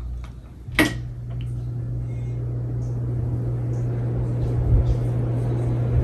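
Hunter 2nd Century ceiling fan: a sharp click, then the motor hums steadily while the whoosh of air grows gradually louder as the fan speeds up.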